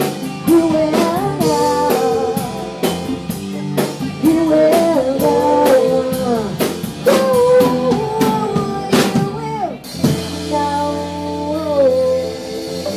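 Live band playing with a woman singing lead over drum kit, bass and electric guitar. About ten seconds in the drums stop and the band holds a chord under her last sung phrase.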